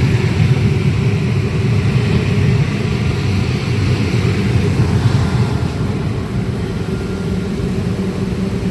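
Condensate pump running steadily with a loud low drone as it pumps water out of a flooded HVAC drain pan into a trash pail.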